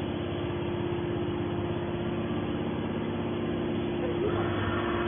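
Hydraulic metal baler's power unit running with a steady hum and a constant tone.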